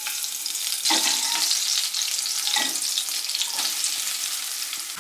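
Green chillies frying in hot oil in a pot, a steady sizzle with a spatula stirring through them a few times.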